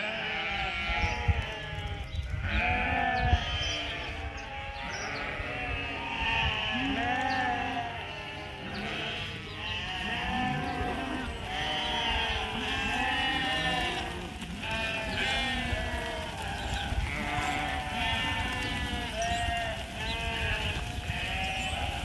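A flock of sheep bleating, many overlapping calls one after another with no let-up, over a low rumble.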